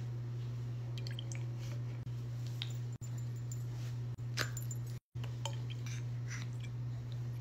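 Breast milk poured from a wearable breast pump's collection cup into a glass baby bottle: scattered drips and small clinks of glass over a steady low hum. The sound drops out for a moment about five seconds in.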